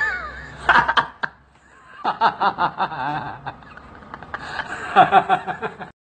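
A person laughing: short bouts of quick chuckling, pulsing about five times a second, once about two seconds in and again near the end.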